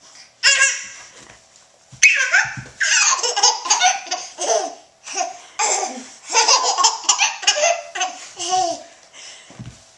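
Baby laughing: one short laugh about half a second in, then repeated bursts of hearty laughter from about two seconds in until near the end.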